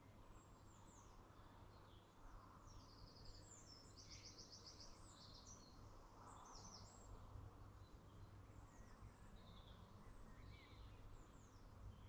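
Faint songbird chorus: several birds giving short high chirps and whistles, with a rapid trill of evenly repeated notes about three to five seconds in. A steady low hum lies underneath.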